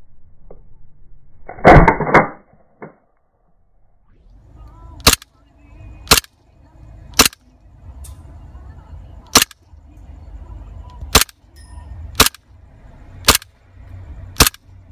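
Stark Arms G19 gas blowback airsoft pistol shooting: eight sharp pops at roughly one-second intervals from about five seconds in. Before them comes a single loud thump about two seconds in.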